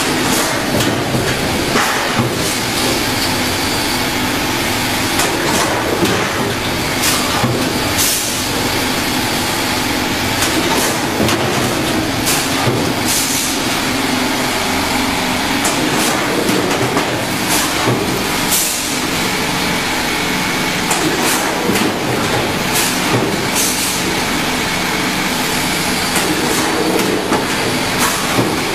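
Apple processing machine running: a loud, steady mechanical din with a low hum and irregular knocks and clatters.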